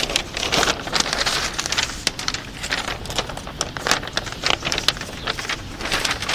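A large sheet of paper rustling and crinkling as it is handled, with many quick crackles.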